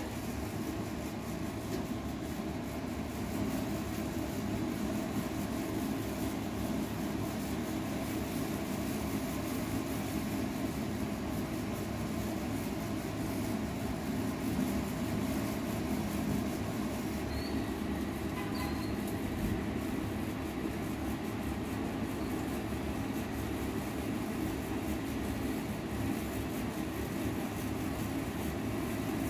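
Steady low mechanical rumble with a constant hiss, unbroken and unchanging.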